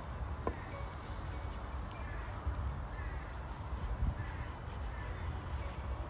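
Faint crow caws, short calls repeating about once a second, over a steady low wind rumble on the microphone, with one sharp click about half a second in.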